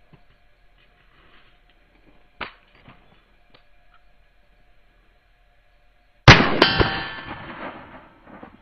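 A loud metallic clang about six seconds in, with a second strike right after it, ringing out and dying away over about a second and a half. A few faint clicks come before it.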